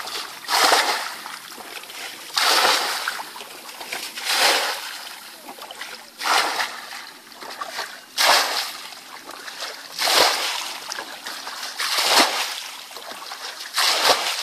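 Buckets of muddy water flung out of a ditch, splashing down about every two seconds as the ditch is bailed out by hand.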